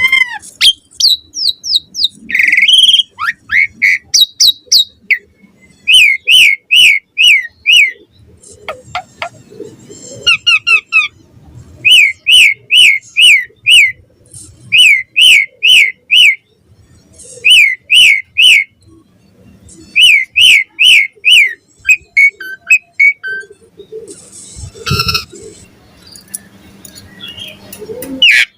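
Asian pied starling (jalak suren) singing in full, vigorous song: repeated loud runs of about five sharp falling whistles, broken by short pauses and mixed with varied chattering and whistled notes.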